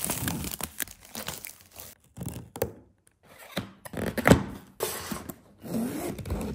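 Unboxing handling sounds: plastic film crinkling and tearing as it is peeled off a cardboard box, then the box being opened with scraping and a sharp thunk about two-thirds through, and a zipper on a fabric carrying bag being worked near the end.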